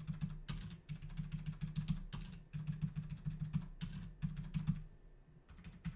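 Computer keyboard typing: a quick, steady run of keystrokes, with a brief pause near the end.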